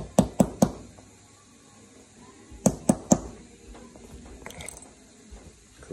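Sharp metallic taps on a punch, driving a pin into an HK P30 pistol's frame: four quick taps, then three more about two seconds later, with a few faint clicks after.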